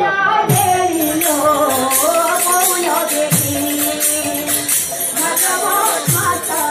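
Women singing a devotional kirtan melody together, with jingling percussion keeping a fast steady beat and a deep drum stroke about every three seconds.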